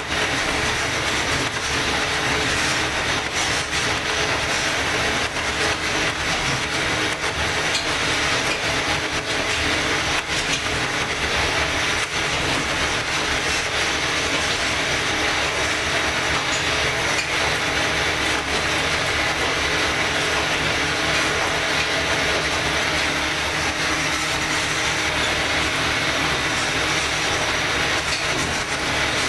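Kominato Railway KiHa 200 diesel railcar running along the line: its DMH17C diesel engine and its wheels on the rails make a steady mechanical running noise at an even level.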